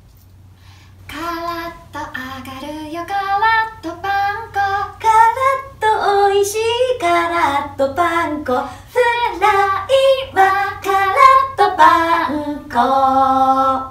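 Two women singing a short Japanese commercial jingle for panko breadcrumbs together, without accompaniment, in quick short syllables. The song ends on a long held note near the end.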